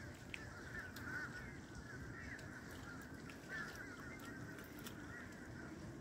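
Faint, continuous clamour of a flock of geese honking, many overlapping calls.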